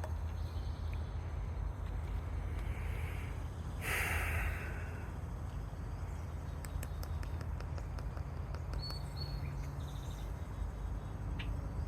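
Outdoor ambience with a steady low rumble. There is a brief loud rustle about four seconds in, then a run of faint light clicks, and two short high bird chirps about nine seconds in.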